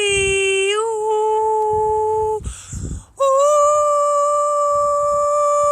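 A woman's voice toning long, steady, wordless held notes. The pitch slides up a little into each note. About two and a half seconds in there is a short breath, and then a new, higher note is held.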